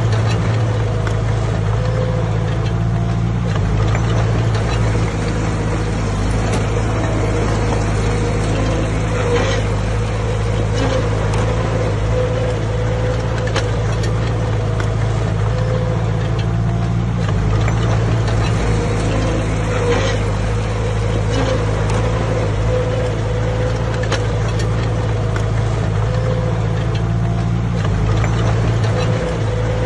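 Bulldozer's diesel engine running steadily, with a few faint knocks.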